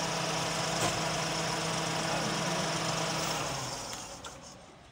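Daihatsu Cuore car engine idling steadily; the hum fades away about four seconds in.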